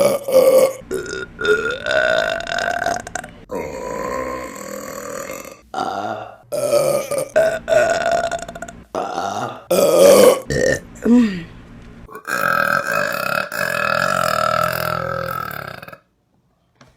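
Women burping loudly, one belch after another in quick succession, some short and some drawn out. Near the end comes one long, steady belch of about four seconds that stops abruptly.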